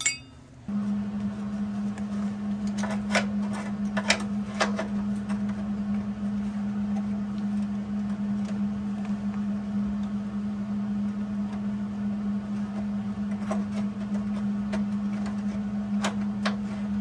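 Steady hum of a MIG welder switched on and ready, with a few scattered sharp clicks as the gun is handled at the joint.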